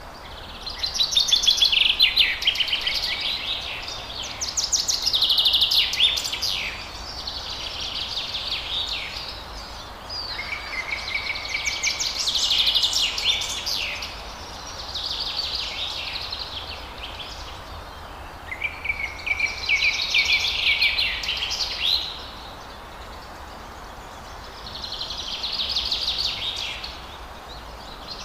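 Forest songbird singing: about seven phrases of rapid, high trilled song, each a second or three long, repeated every few seconds over a steady faint hiss.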